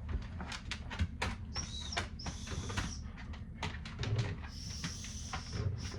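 Small survival gear being handled: a quick string of plastic-and-metal clicks and taps, with two longer faint high-pitched hisses.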